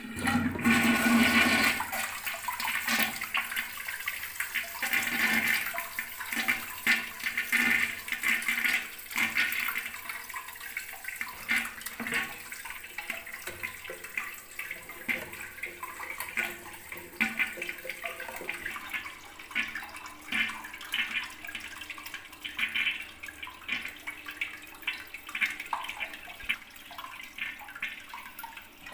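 A toilet flushing through a newly fitted cistern flush valve. Water rushes into the bowl with a sudden loud start, then keeps running and trickling unevenly, slowly getting quieter, as the cistern empties and refills.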